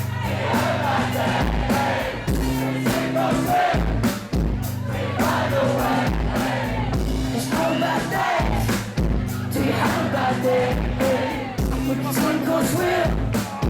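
A rock song playing, with a steady drum beat, bass and a wavering melodic vocal or lead line.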